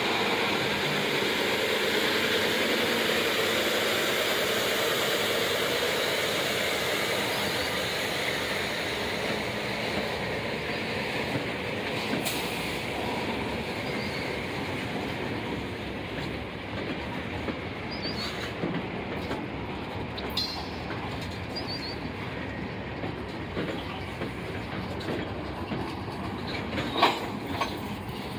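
Freight gondola cars of a rail work train rolling past, steel wheels rumbling steadily on the rails, louder at first and then easing a little, with a few sharp clacks and small high squeaks.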